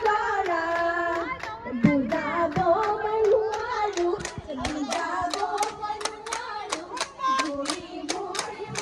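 Women's voices singing a Bihu song, with steady rhythmic hand clapping, about three claps a second, joining in from about four seconds in.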